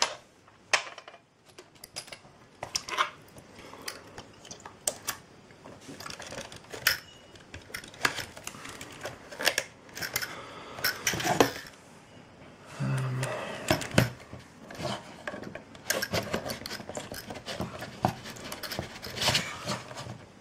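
Metal tools, a kitchen knife blade and small screwdrivers, clicking, knocking and scraping against the hard plastic case of an external hard drive as they are pried into its seam. The clicks come irregularly, a few a second, with stretches of scraping.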